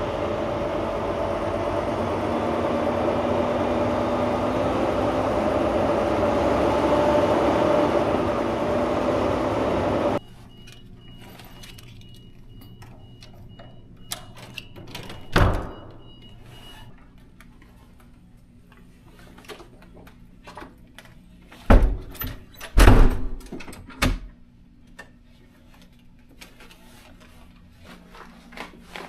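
Semi truck driving, heard from inside the cab: a steady road and engine drone that cuts off abruptly about ten seconds in. After it comes a quiet room with small knocks and rattles, one thump around fifteen seconds in and a cluster of loud door-like thumps a little later.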